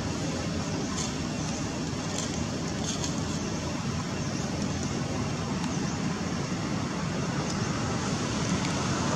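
Steady outdoor background noise, mostly a low rumble, with faint short high chirps now and then.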